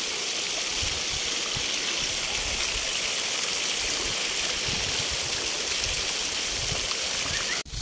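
Garden fountain splashing steadily: thin water jets land on a stone sphere and water pours off it into the basin. The sound cuts out abruptly near the end.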